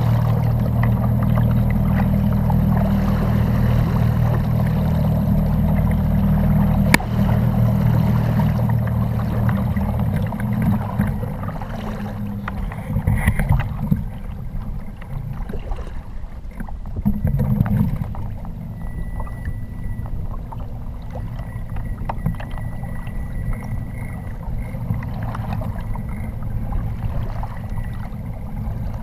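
Low, steady rumble of water and wind around a kayak on choppy open water, heard from a camera mounted on the boat, louder for roughly the first third. There is one sharp click about a quarter of the way through.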